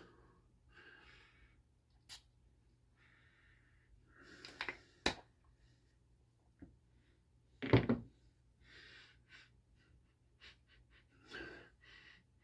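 Quiet sniffing and breathing close to the microphone, with a few short clicks and knocks; the loudest is a brief burst about eight seconds in.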